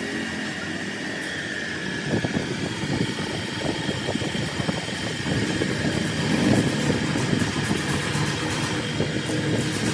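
A motor running, with a faint steady high whine at first, then an irregular low rattle from about two seconds in.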